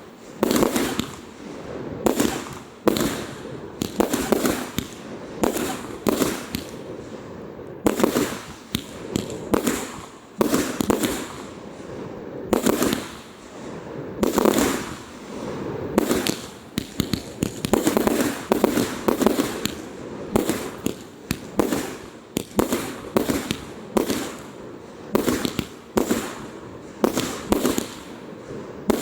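Fireworks display: a rapid, continuous run of shell bursts and crackles, several bangs a second.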